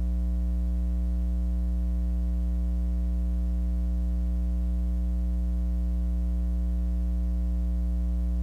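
Steady electrical mains hum with a buzzing edge and no other sound: a low, unchanging hum with a ladder of higher overtones, the game sound absent.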